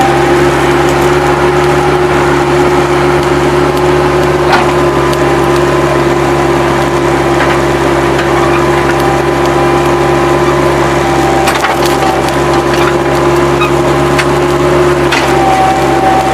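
Bobcat 763 skid-steer loader running steadily under load with a steady whine while spreading dirt, with a few sharp knocks and clatters from the bucket and the working machine.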